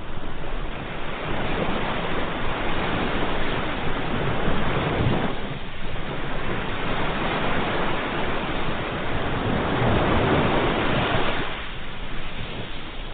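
Sea waves breaking and washing up the shore: two long surges of surf, each building over several seconds and then falling away.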